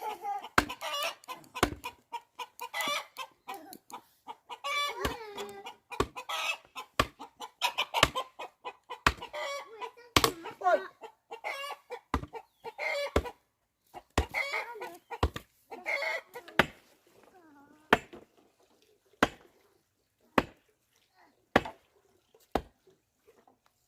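Chickens clucking, with a rooster among them, over a steady series of sharp knocks about once a second. The clucking dies away about two-thirds of the way through while the knocks carry on.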